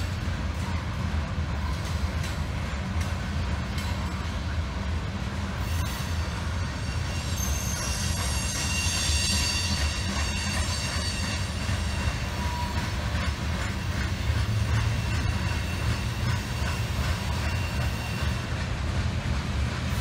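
Freight train of covered grain hopper cars rolling by with a steady low rumble of wheels on rail. A high-pitched wheel squeal comes in about six seconds in, is strongest around the middle and fades after a few seconds.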